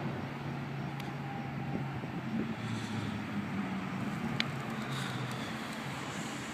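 Low, steady hum and rumble of a car still far off, approaching through a road tunnel, with the sound echoing off the walls. A faint click comes about a second in and a short high chirp a little past four seconds.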